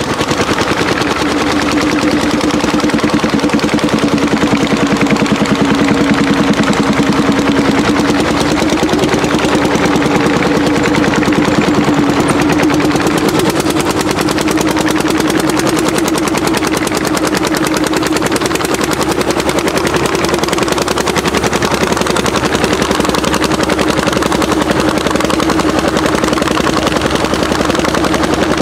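Orsi Argo tractor's single-cylinder two-stroke hot-bulb engine pulling a plough at full throttle: a rapid, steady stream of sharp exhaust beats.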